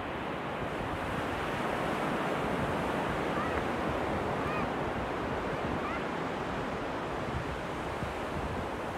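Ocean surf breaking and washing across a shallow sandy beach: a steady hiss of waves that swells slightly through the middle. A few faint, short, high calls sound about halfway through.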